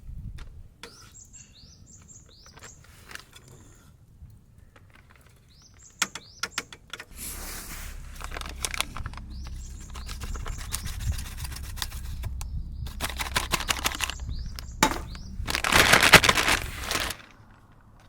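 Small birds chirping, short calls that fall in pitch, repeated over scattered clicks and knocks. From about seven seconds in, a louder rustling noise with a low rumble joins them, swelling near the end and cutting off suddenly.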